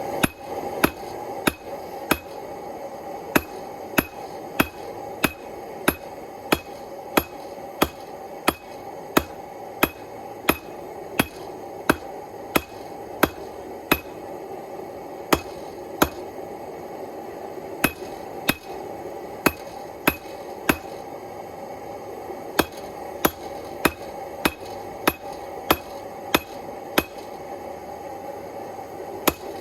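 A hand hammer striking red-hot steel in a steady rhythm, about one and a half blows a second with a few short pauses: forging a knife blank. Each blow is sharp and ringing.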